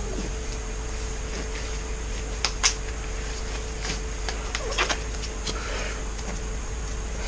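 Disposable gloves being handled and pulled on: a few faint snaps and rustles over a steady hum.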